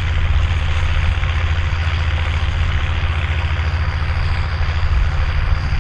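Volvo BM turbo tractor's diesel engine running steadily at idle, with a steady high turbo whistle over the low engine note.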